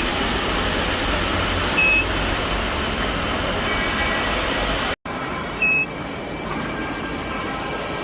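Steady industrial machinery noise with two short high-pitched beeps, about two seconds and about six seconds in. The sound drops out for an instant near the middle.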